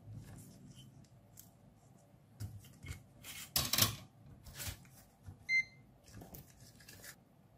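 Small handling noises of electronics bench work: clicks and rustles as a small electrolytic capacitor is removed from a phone charger's circuit board and picked up. There is one short electronic beep about five and a half seconds in.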